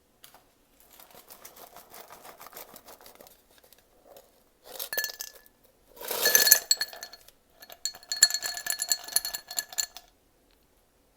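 Glass clinking and ringing: a light rapid crackle of small clinks, then louder clinks about five and six seconds in, the loudest with a ringing tone, then another quick run of clinks with ringing tones that stops about ten seconds in.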